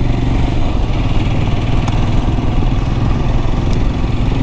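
Motorcycle engine running steadily while riding, with a steady rush of wind and road noise.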